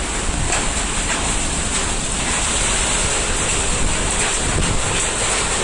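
Thunderstorm wind and heavy rain, a loud, steady rush of noise, with the wind buffeting the microphone.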